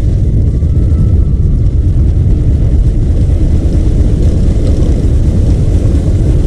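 A motorcycle on the move: a steady low rumble of engine and wind on the microphone.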